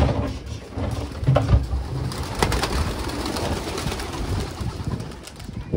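A flock of domestic flying pigeons flapping their wings as they rush out of a rooftop loft and take off, with irregular wing thuds and a dense rustle of many wings.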